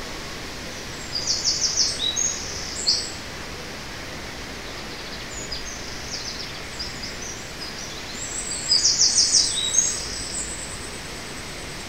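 Small woodland songbirds singing, a European robin and what is taken for a wren: two bursts of high, fast trilled song, about a second in and again after about eight and a half seconds, with scattered fainter notes between, over a steady hiss.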